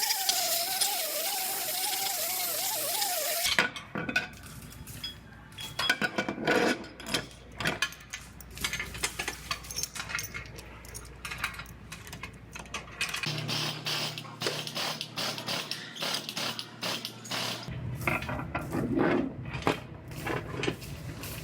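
A power tool runs steadily with a wavering whine for about three and a half seconds and stops abruptly. Then come irregular metallic clicks, taps and clinks of tools being worked on sheet metal, over a low electrical hum that shifts twice.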